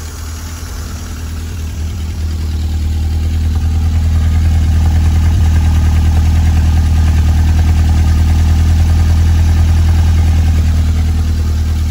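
1952 Fordson E83W's four-cylinder side-valve engine idling steadily, heard at its newly replaced exhaust tailpipe. The exhaust note grows louder over the first few seconds as the tailpipe comes close, then holds steady.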